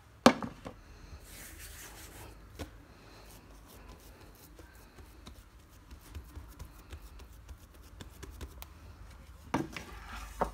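Kitchen handling sounds: one sharp knock just after the start as a frying pan is moved on the countertop, then soft rubbing and patting of oiled hands pressing dough flat. Light taps and scrapes of a wooden spoon stirring filling in the pan come near the end.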